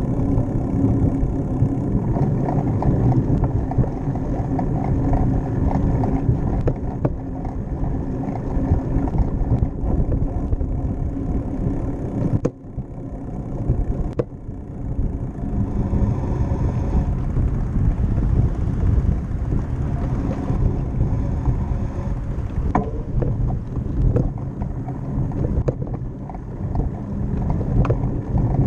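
Bicycle riding noise on a concrete path: a steady low rumble of wind and tyre noise on the bike-mounted camera, broken by a few sharp knocks and brief dips partway through.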